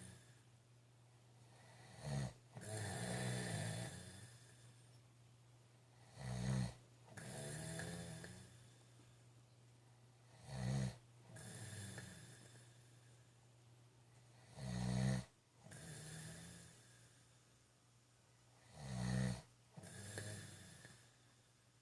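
A man snoring in his sleep, in a slow, regular cycle about every four seconds: a short, loud snore followed by a longer, quieter breath. Five cycles are heard.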